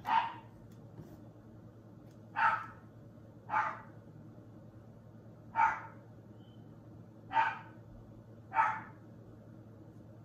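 A dog barking: six single barks at uneven intervals, one to two seconds apart.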